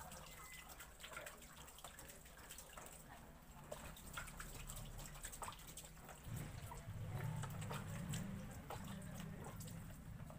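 Faint splashing and dripping of water as a wet puppy is washed over a plastic basin, many small scattered drips and splashes. A low steady hum runs underneath and grows louder about six seconds in.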